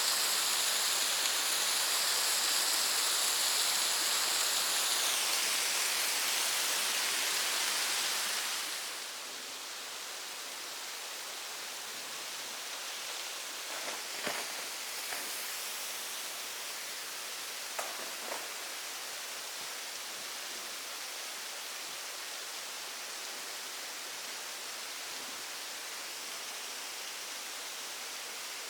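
Kiyotaki waterfall's water rushing down in a steady hiss. The sound drops a little in level about a third of the way in, and a few faint clicks come through in the middle.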